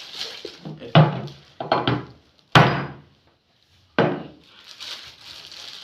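Four sudden knocks or thumps, spread over about three seconds, the third the sharpest and loudest.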